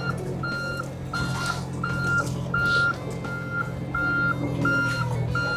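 John Deere mini-excavator's travel alarm beeping steadily, about one beep every 0.7 seconds, over its diesel engine running: the machine's tracks are moving.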